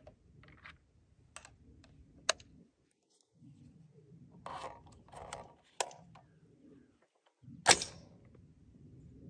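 Small metallic clicks and rustling from handling cartridges and an AR-15 rifle while loading it, then one much louder sharp metallic clack near the end.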